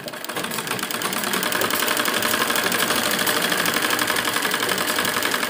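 Sewing machine running a seam, a fast even patter of stitches, picking up speed in the first second and then holding steady. It is stitching the second seam that joins a net sleeve to a dress.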